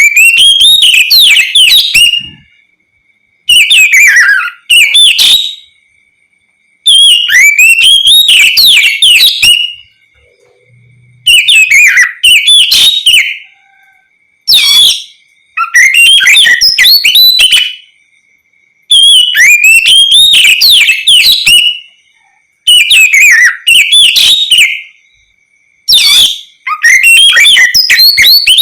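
Oriental magpie-robin (kacer) singing loudly in open, 'ngeplong' style: rapid runs of varied, sweeping whistled notes in bouts of one to three seconds, with pauses of about a second between them.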